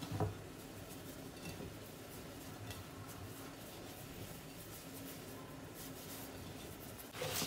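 Hands rubbing moistened semolina grains in a glass bowl: a faint, gritty rustling as the oil, butter and water are worked into the semolina with the fingers instead of kneading, to make makrout dough. The rustling grows louder near the end.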